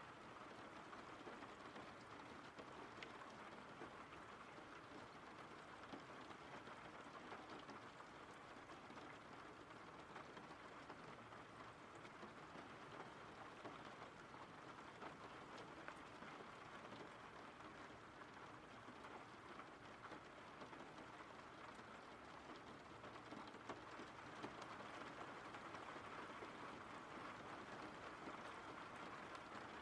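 Faint, steady rain falling, an even hiss with fine scattered drops.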